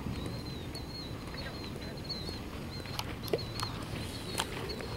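A bird singing a run of short, high, repeated chirps over steady outdoor background noise, with a few sharp clicks near the middle.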